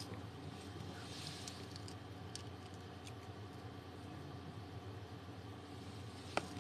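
Quiet room with a steady low hum, a soft breathy hiss about a second in and a few faint clicks, the sharpest one near the end, as a person shifts at a table.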